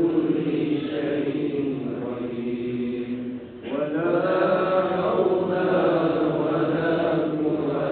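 Post-prayer devotional chanting in a mosque: long, melodic sung phrases with a short pause for breath about three and a half seconds in.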